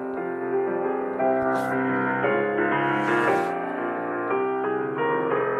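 Soft background piano music, sustained notes and chords.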